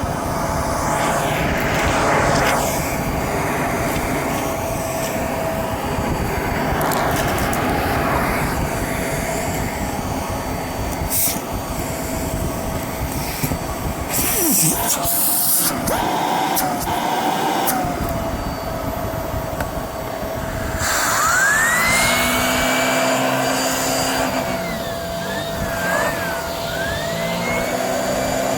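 Shark handheld vacuum cleaner running, a steady motor whine over the rush of air. In the last several seconds its pitch rises, holds, wavers and falls a few times.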